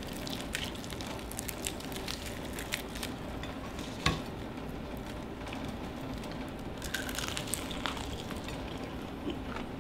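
Crispy fried chicken crust crackling as a piece is pulled apart by hand, with scattered small crackles and a sharper crack about four seconds in, then bitten into, over a steady hiss.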